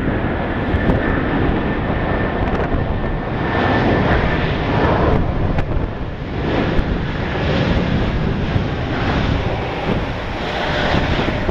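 Airbus A321-231's IAE V2500 jet engines running as the airliner rolls out along the runway after landing, with a thin steady whine in the first few seconds. Gusty wind buffets the microphone over it.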